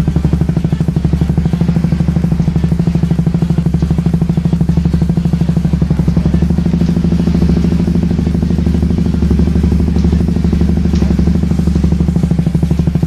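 Suzuki GSX-S150 single-cylinder four-stroke engine idling through an aftermarket racing muffler, a steady, even, rapid exhaust beat. The revs come up a little around the middle, then settle back.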